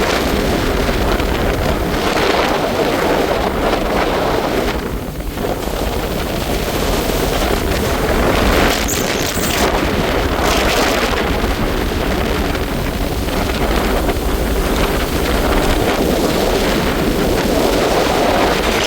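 Jet ski running across open water, heard as heavy wind buffeting the microphone mixed with rushing water and the craft's motor.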